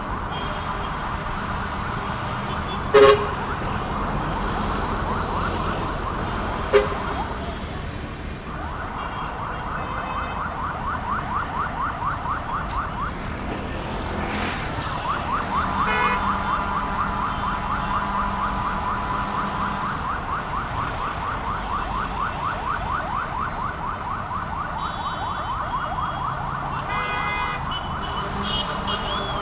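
An emergency-vehicle siren in a fast yelp, sweeping up and down about five times a second, over steady street traffic. Two short, sharp, loud blips come about three seconds in and again near seven seconds.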